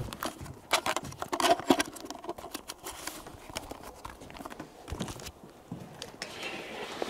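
Irregular clattering knocks and footfalls on a wooden boardwalk, mixed with the rattle of carried gear and camera handling; busiest in the first couple of seconds, then sparser, with one heavier thump about five seconds in and a soft rustle near the end.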